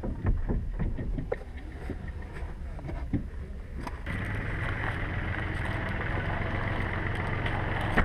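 Knocks, bumps and rustling as a wakeboard with its bindings is handled and lifted out of a car's boot, picked up close inside the boot. About halfway through, this gives way to a steady hiss.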